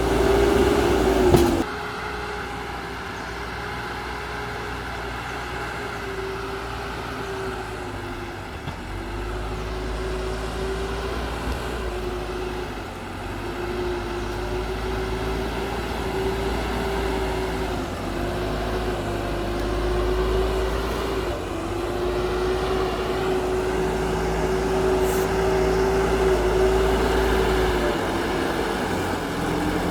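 Backhoe loader's diesel engine running under load while dozing soil, its pitch dipping and recovering several times as the load changes. A sharp knock about a second and a half in.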